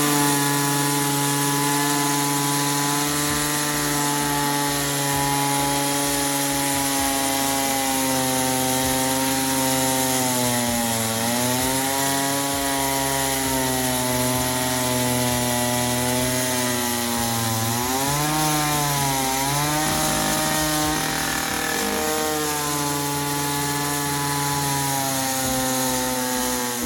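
Husqvarna K970 Ring two-stroke petrol ring saw running at high revs while its diamond ring blade cuts concrete by hand. The engine pitch sags under load about eleven seconds in and again around eighteen seconds, then recovers each time.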